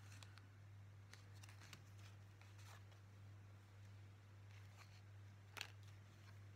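Near silence: faint rustles and light taps of small paper card tags being handled and set down on a table, with one slightly sharper tap about five and a half seconds in, over a steady low hum.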